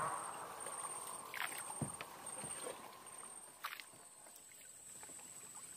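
Small wooden dugout boat on calm water: a few light knocks and clicks against the hull in the first few seconds, over faint water noise.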